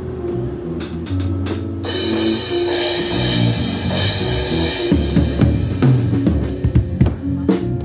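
Live band playing at a sound check: a drum kit with a cymbal wash that runs for about three seconds, then a quick run of drum hits, over changing bass notes.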